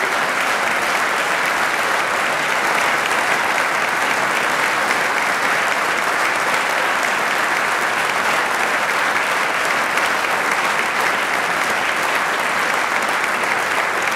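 A large seated audience applauding, steady and unbroken.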